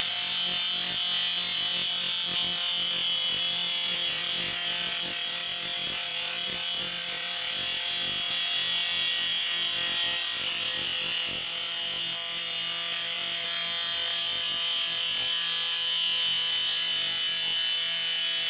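Electric angle grinder with an abrasive disc grinding the cutting edge of a steel lawn mower blade, sharpening its bevel: a steady grinding with a high whine from the disc and motor.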